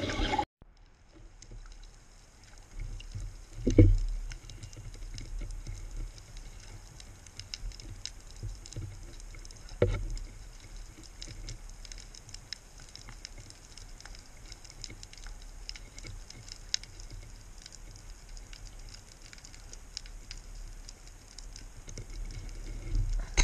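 Underwater sound through a speargun-mounted camera's housing: a low rumble with scattered faint clicks and crackles. Two dull knocks, about 4 and 10 seconds in, come as the speared amberjack and gun are handled.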